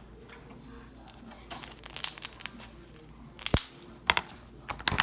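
Slime being stretched, poked and pulled apart by hand, crackling and popping in short clusters; the loudest is a single sharp pop about three and a half seconds in.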